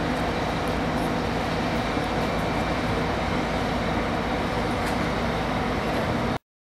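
Steady mechanical hum with an even noise over it, unchanged throughout, cutting off suddenly near the end.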